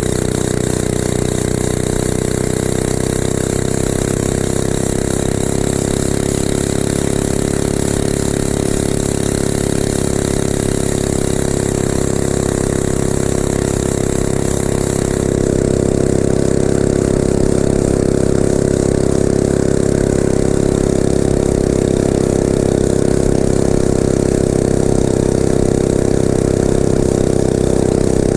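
Mini bike's small engine running steadily, getting louder about halfway through and holding at the higher level.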